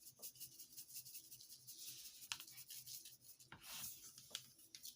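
Faint scratchy rubbing with a few light taps, seasoning being shaken from a spice shaker onto raw chicken.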